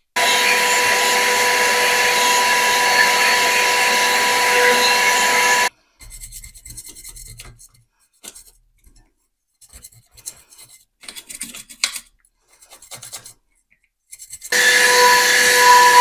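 Handheld electric blower running with a steady whine, blowing dust out of a PC case fan, cut off abruptly after about six seconds. Quiet rubbing and handling of the plastic fan follow. The blower starts again near the end.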